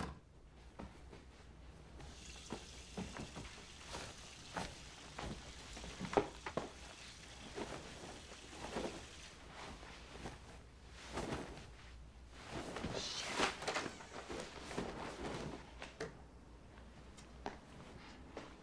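Faint rustling of clothes and bedding with soft knocks and thumps as a person changes and settles into bed, over a faint steady hiss that stops about two seconds before the end.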